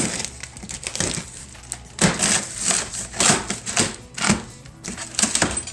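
A cardboard shipping carton being pulled open by hand: cardboard and packing tape crunching and scraping in a string of short rustles, the loudest from about two seconds in.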